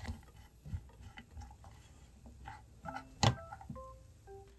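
Light scattered clicks and taps, with one sharp knock about three seconds in, over soft background music of short single notes.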